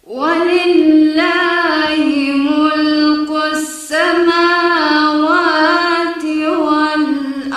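A woman's voice reciting the Quran in Arabic with tajweed in a slow, melodic chant: two long held phrases with ornamented turns, broken by a short breath about four seconds in.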